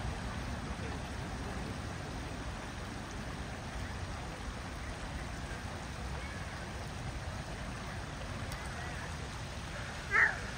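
Steady rush of running water from a park fountain channel, with one short, loud call near the end.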